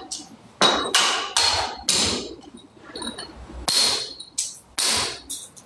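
Hammer strikes on a building site: about eight sharp blows at uneven spacing, with a pause in the middle and a short ring after some of them.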